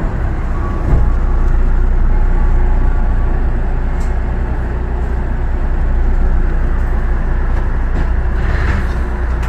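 Osaka Monorail train running along its track, a steady rumble with a low hum heard from inside the car.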